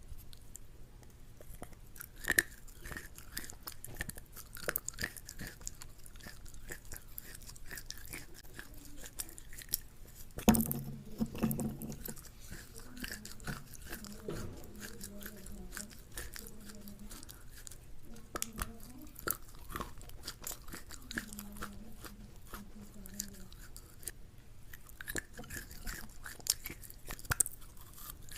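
Close-miked chewing and crunching of food in an irregular run of crisp crunches and mouth clicks, with a louder bite about ten seconds in.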